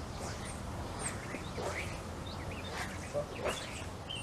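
Small birds chirping and calling repeatedly over a steady low outdoor background, with a few short soft swishes.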